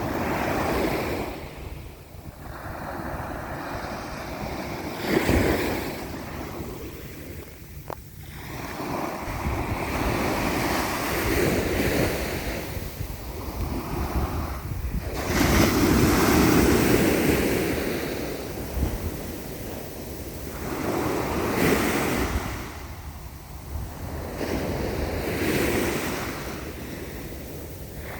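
Sea waves breaking and washing up on the shore, swelling and falling back every few seconds, with wind rumbling on the microphone.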